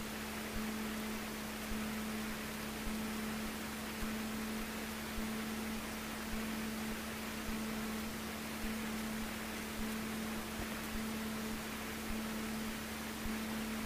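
Steady hiss with a constant low electrical hum: the noise floor of the Cessna 150's cockpit intercom and radio audio feed while the plane taxis.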